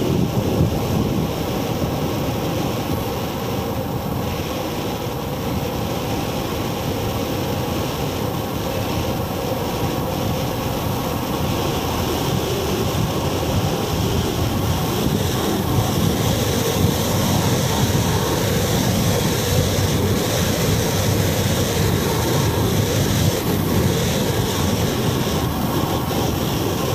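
Wind rushing over a handlebar-mounted action camera's microphone, mixed with tyre and road rumble from a bicycle coasting downhill. A steady rushing noise that grows slightly louder in the second half as the speed rises.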